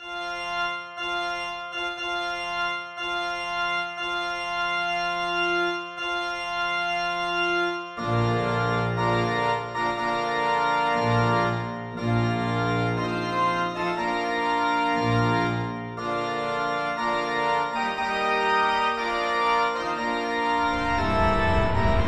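Background music: held chords for about eight seconds, then a bass line and moving notes come in and the music gets fuller. A rushing noise rises at the very end.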